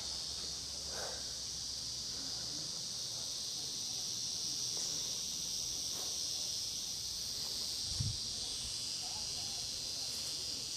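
Insects, crickets or similar, chirring in a steady high-pitched chorus. A single soft thump about eight seconds in.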